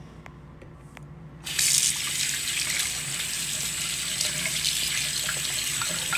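Water from a sink faucet comes on suddenly about one and a half seconds in and runs steadily into the sink, splashing over a small terracotta dish being rinsed by hand.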